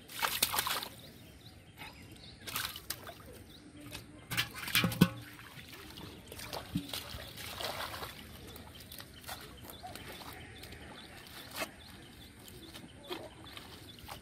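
Hands and a caught catfish splashing and sloshing in shallow muddy water, in several short bursts; the loudest comes about five seconds in.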